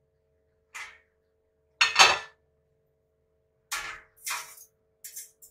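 A stainless steel steamer pot and its lid clattering as a tray is set inside: a handful of separate metal clanks, the loudest about two seconds in, over a faint steady hum.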